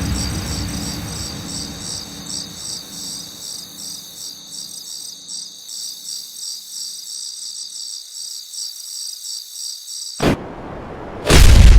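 Crickets chirping sound effect, a steady pulsing chirp over the dying rumble of a boom; it cuts off sharply near the end, and after a short blip a loud boom hits.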